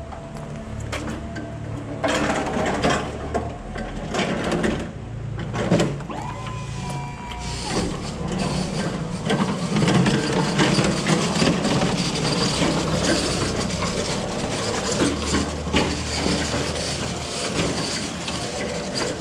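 Electric pallet truck loaded with a pallet of bottled drinks, its wheels rattling and clattering over stone paving slabs. The clatter grows louder from about eight seconds in as the truck passes close by.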